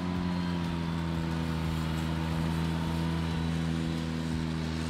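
Ventrac 4500 articulating tractor running steadily at a constant engine speed while it mows tall grass on a slope with its front-mounted mower deck.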